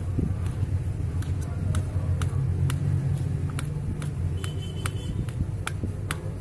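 Knife blade clicking against a stainless steel plate as papaya is chopped into chunks, sharp irregular taps about twice a second, over a steady low hum.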